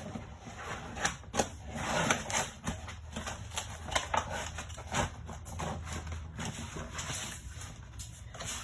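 Handling noise from fitting a white backdrop into a canvas photo light box: rustling with an irregular string of clicks and knocks.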